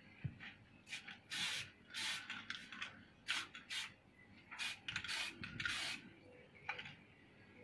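Aerosol spray-paint can hissing in a series of short bursts, some brief and some about half a second long, as red paint is sprayed onto a thin wooden fan slat.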